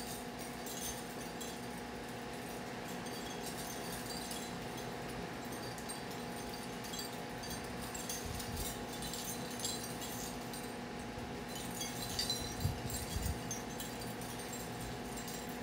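Light dripping and pattering of rainwater after a storm: scattered soft ticks over a faint hiss, with a brief cluster of louder ticks and low thumps about twelve seconds in. A steady low hum runs underneath.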